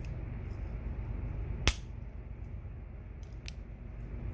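Victorinox Mechanic Swiss Army knife tools clicking on their backsprings as they are worked open and shut: one sharp snap not quite halfway in, then two lighter clicks in quick succession near the end.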